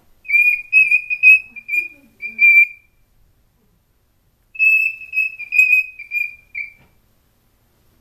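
Young male cockatiel singing its whistled song to its reflection in a mirror: two phrases of short, clear whistled notes, the second starting after a pause of about two seconds.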